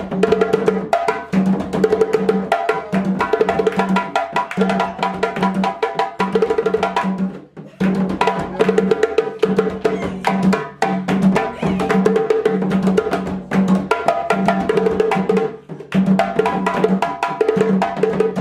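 Live hand drumming on a djembe and a rope-tuned barrel drum, a fast, steady rhythm of hand strokes. It drops out briefly twice, about seven and a half and fifteen and a half seconds in.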